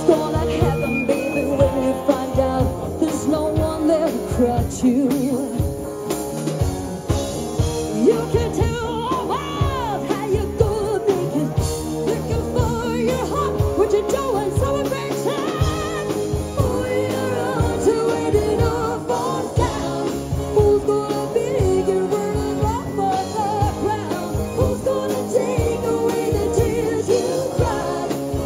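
Live rock band playing: a woman sings lead over electric guitars and a drum kit with a steady beat.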